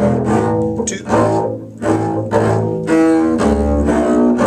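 Bowed double bass playing a line of sustained notes, with other bowed strings sounding along in harmony.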